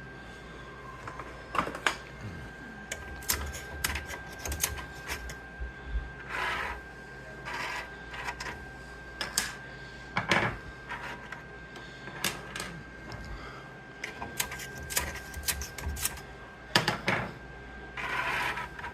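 A 3D-printed plastic counter mechanism clicking at an uneven pace, with a few short rattles, over a faint steady high tone.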